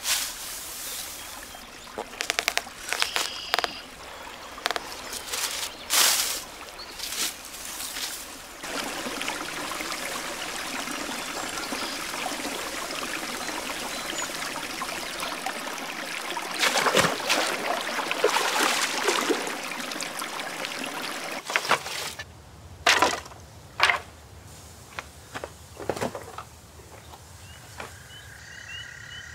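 Sharp knocks and rustling from rice straw being handled. In the middle comes about thirteen seconds of steady flowing, sloshing water in a shallow river as a person wades through it, followed by a few more knocks near the end.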